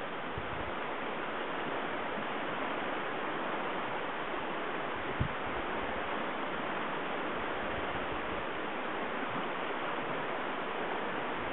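Steady rushing of river water, with one brief knock about five seconds in.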